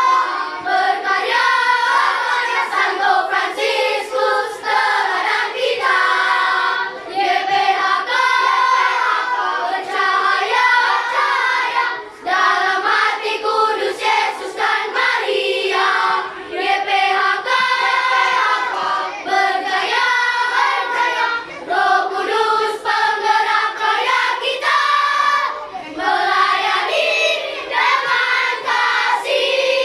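Children's choir of fifth-grade pupils singing a march together, the voices continuous with short breaks between phrases.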